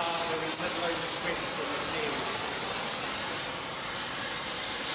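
Oxy-fuel gas torch flame hissing steadily as it heats a short section of steel bar clamped in a vice, so that the bar can be twisted.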